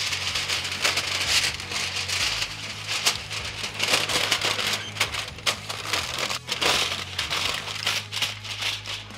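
Aluminum foil being folded and crinkled by hand to wrap a rack of ribs, a continuous crackling rustle.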